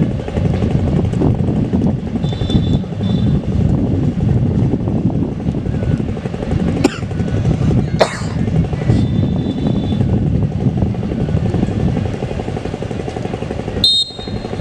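Wind buffeting the microphone, a loud, uneven low rumble. A couple of short clicks come in the middle, and a brief high whistle sounds near the end.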